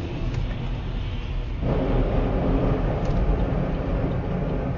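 Car's engine and tyre noise heard from inside the cabin as it slows in motorway traffic: a steady low rumble that grows a little fuller about one and a half seconds in.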